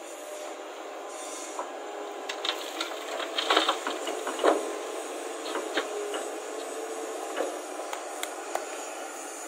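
Hyundai crawler excavator running steadily while it dumps a bucket of soil and stones into a dump truck's steel bed. From about two seconds in, a cluster of clatters and knocks as the load lands, loudest around three and a half and four and a half seconds in.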